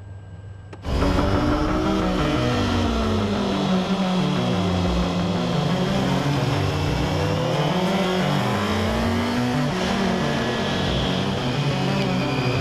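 Racing motorcycle engine running hard at high revs, its pitch rising and falling with the throttle. It cuts in suddenly about a second in.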